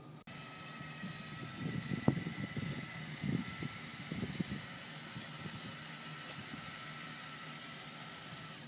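A steady machine hiss with a faint high whine running under it, and a handful of low knocks and thumps in the first half, the sharpest about two seconds in.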